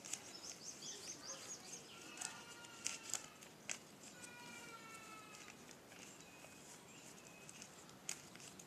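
Faint rustling and small clicks of thin craft paper being creased and folded by hand on a plastic tablecloth. Faint high chirps sound early on, and two held calls come about two and four seconds in.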